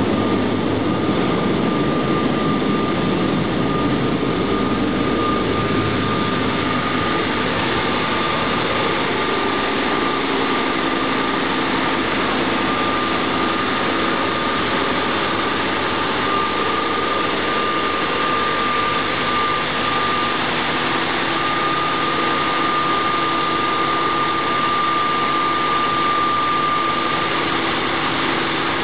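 Caterpillar marine diesel engine running steadily in a towboat's engine room: a loud, even mechanical drone with a steady high whine on top.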